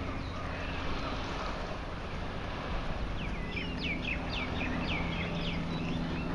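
Steady outdoor background noise with a faint low hum. About halfway through, a bird gives a rapid run of sharp chirps, roughly five a second, lasting about two seconds.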